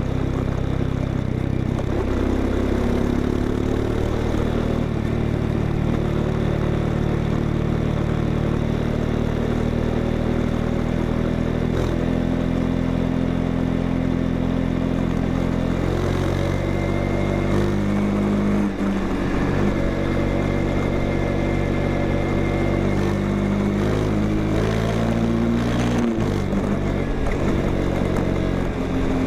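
Honda XRE 190's single-cylinder engine running through its exhaust, with the engine speed shifting up and down several times, mostly in the second half.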